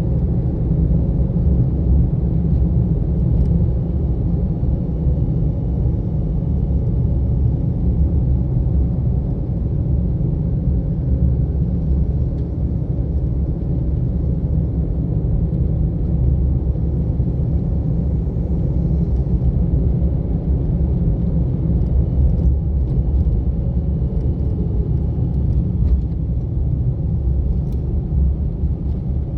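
Car driving along: a steady low rumble of engine and tyre road noise, with a few faint ticks.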